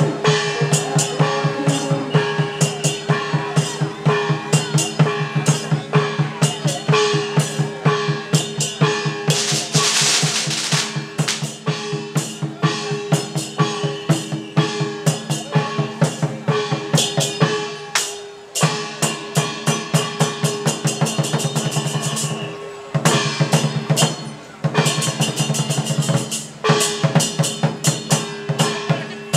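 Traditional Taiwanese dragon-dance percussion: a drum beaten in a fast, even rhythm with cymbals and ringing gong tones. About ten seconds in, a burst of noise lasts about a second, and the beat breaks off briefly a few times after the middle.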